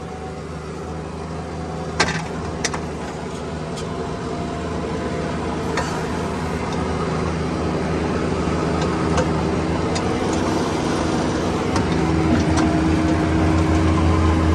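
Bobcat 322 mini excavator's three-cylinder Kubota diesel running at a steady pitch, growing gradually louder, with a few sharp clicks about two seconds in and again around six seconds.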